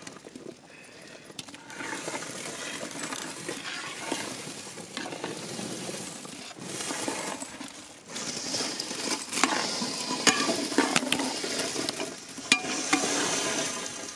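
Dry noodles going into a large pot of boiling masala water and being stirred with a metal ladle: the bubbling water, with scraping and clinks of metal on the pot that get louder about eight seconds in.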